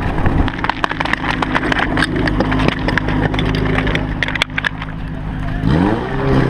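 Portable fire pump engine running steadily, then revving up sharply near the end as the water is sent down the hoses. On top, a clatter of running footsteps and metal hose couplings knocking together as they are coupled.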